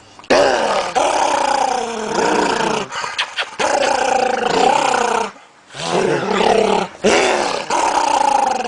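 A dog growling and grumbling: four long vocal sounds whose pitch wavers, with short breaks between them.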